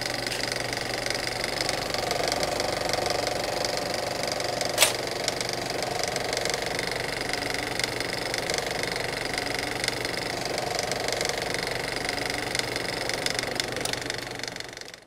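Steady mechanical clatter of a film projector running, with a fast even rattle and a constant whir; one sharp click about five seconds in, and the sound cuts off suddenly at the end.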